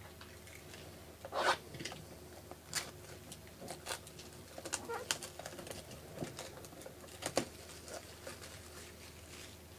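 Packaging being handled and opened: irregular crinkles, taps and clicks of plastic wrap and cardboard, over a faint steady hum.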